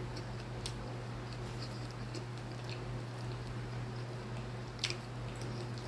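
Close-miked chewing of soft, fatty pork, with faint wet mouth sounds and small clicks, and one sharper click about five seconds in, over a steady low hum.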